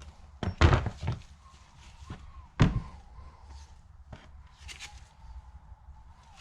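Metal parts of a right-angle worm gearbox knocking and clunking as it is taken apart: a few sharp knocks about half a second to a second in, a louder single clunk about two and a half seconds in, then lighter taps.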